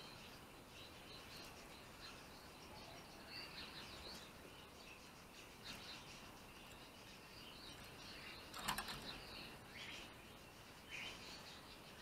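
Small songbirds chirping faintly on and off. A brief burst of sharp clicks comes about three-quarters of the way in.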